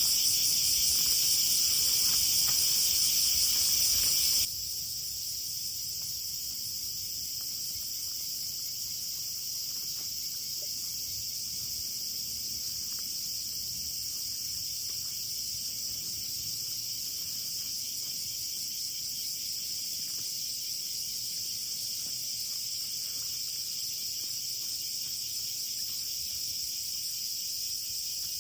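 Steady, high-pitched chorus of insects trilling, which drops noticeably quieter about four and a half seconds in.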